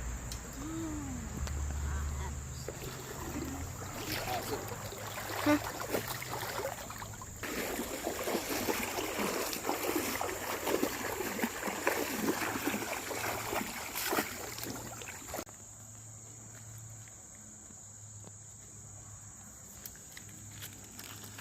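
Legs wading through knee-deep creek water, sloshing and splashing for about twelve seconds before it stops suddenly and goes quieter. A steady high insect drone runs underneath.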